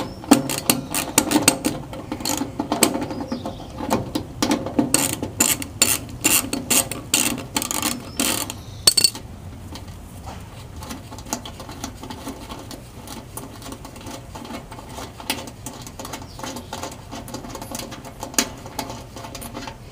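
3/8-inch socket ratchet clicking in quick runs as fasteners on the furnace blower motor mount are loosened, with metal handling sounds. About nine seconds in the clicking stops and only faint scattered clicks and handling remain.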